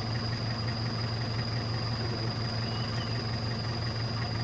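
An engine idling steadily with a constant low hum, alongside a steady high-pitched whine.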